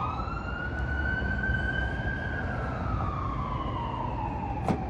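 A siren wailing: its pitch rises quickly, climbs slowly for about two seconds, then slides slowly down, with a single click near the end.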